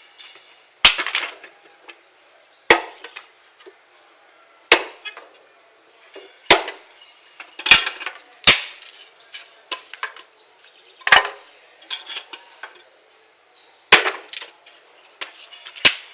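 Firewood being chopped: about nine sharp blows on wood, one every second or two, with light cracking and splintering between them.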